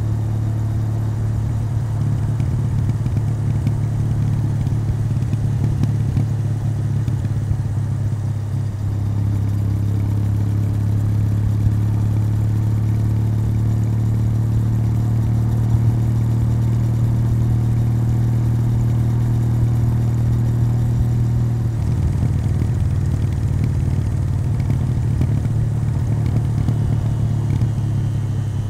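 Kawasaki W800's air-cooled parallel-twin engine running through its stock exhaust while being ridden, a steady deep note that settles smoother about a third of the way in and turns rougher and less even about three quarters of the way through.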